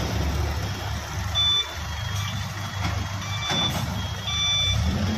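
Delivery box truck's reversing alarm sounding short, high-pitched beeps about once a second, over the steady low rumble of truck engines running as the trucks maneuver.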